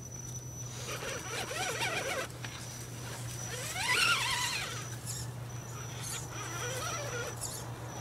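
Electric motors and gear drives of radio-controlled scale rock crawlers whining as they climb over rocks, the pitch rising and falling with the throttle, most sharply about four seconds in.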